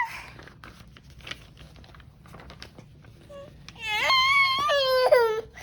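A small child's high-pitched cry, starting about four seconds in, lasting about a second and falling in pitch at the end.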